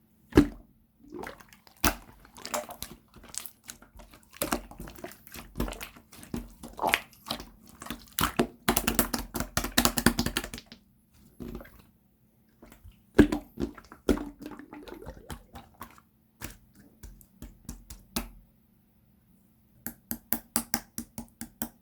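Jiggly slime being squished and pressed by hand, making wet clicks and squelches with short pauses between. About halfway there is a dense run of crackling clicks, and near the end a quick series of pops, about four a second.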